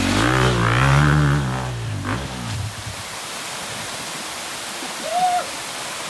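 Husqvarna enduro motorcycle engine revving hard as the bike climbs through a rocky stream, its pitch rising and then falling away over the first two and a half seconds. Then the steady rush of the stream and waterfall remains.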